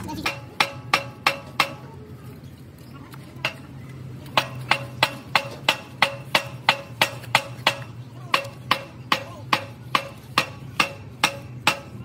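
Hammer blows on metal at a truck gearbox housing, each a sharp ringing strike: a short run of five near the start, a single blow about three and a half seconds in, then a steady series of about three strikes a second.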